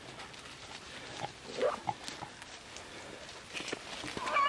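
A few short grunting snorts from a beagle about a second and a half in, over faint rustling and crackling in dry brush.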